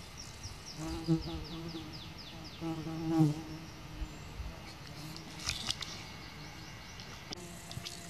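A flying insect buzzing close by, a fly or bee humming past twice: about a second in and again around three seconds.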